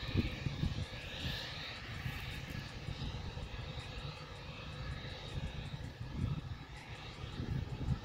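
Jet aircraft engine running steadily, a faint high whine over a low rumble, with uneven wind buffeting the microphone.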